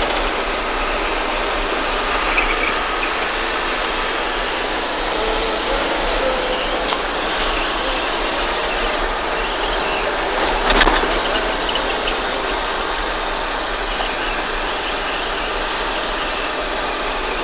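Steady running noise of a moving vehicle, an even hiss with a brief click or knock about seven seconds in and again near eleven seconds.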